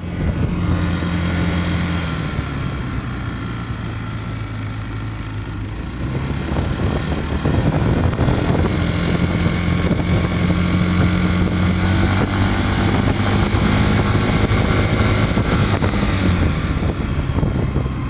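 Yamaha Cygnus-X 125 scooter's single-cylinder engine running while being ridden, easing off for a few seconds early on and then pulling steadily again, with wind on the microphone. The owner reports an abnormal rapid "da-da-da-da" tapping from the floorboard area at around 30–40.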